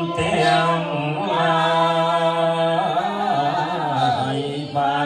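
Group of women chanting Buddhist verses in unison from prayer books, in long held notes over a steady pitch, with a brief breath pause near the end.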